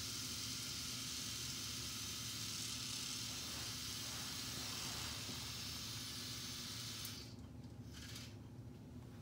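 Plastic K'nex Trabant ride model running, its gears and rotating parts making a steady high whirring hiss that stops suddenly about seven seconds in, leaving a low steady hum.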